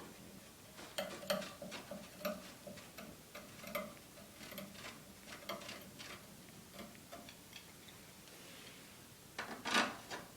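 Light clicks and clinks of paramotor cage poles being handled and screwed into their threaded fittings, scattered irregularly, with a louder clatter near the end.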